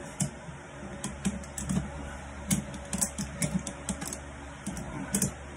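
Ratchet strap being cranked to compress an ATV shock's coil spring: a string of sharp, irregular clicks.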